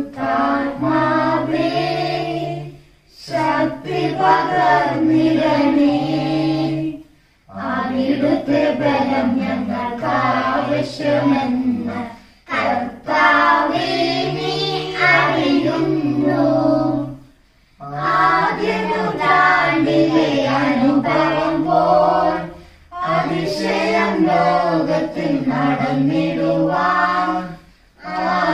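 Family voices, adults and children together, singing a devotional hymn in unison, in about six phrases of roughly four seconds each with short breaks for breath between them.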